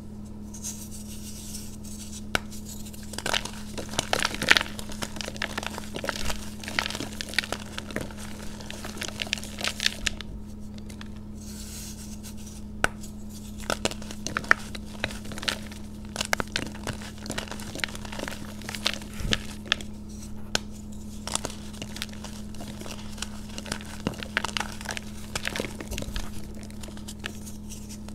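Hands crushing and crumbling reformed chalk blocks coated in green powder: irregular dry crunches and crackles as the blocks snap and break into powder, with a short lull about ten seconds in. A steady low hum sits underneath.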